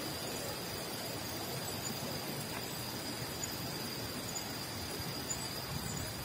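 Steady rolling noise of a bicycle moving along an asphalt road, tyre hiss mixed with air rushing past the phone's microphone, under a faint steady high-pitched tone.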